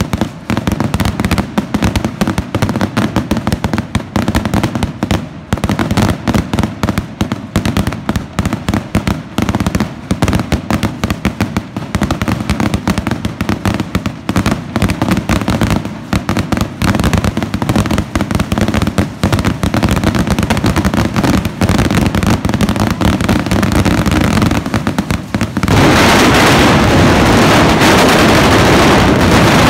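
Fireworks going off close by: rapid, continuous crackling and popping from sparks bursting overhead. About twenty-six seconds in it changes suddenly to a louder, steady rushing hiss as a ground fountain of sparks burns at full force.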